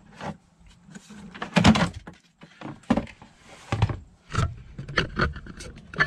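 Irregular knocks, clunks and scrapes of a Freightliner's plastic HVAC blower motor and fan cage being handled and lifted out of its dash housing. The loudest is a rough scrape a little under two seconds in.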